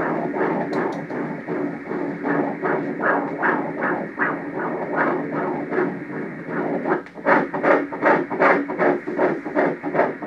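Doppler ultrasound audio of a 9-week embryo's heartbeat, played by the scanner: a rapid, rhythmic pulsing hiss of close to three beats a second, louder from about seven seconds in.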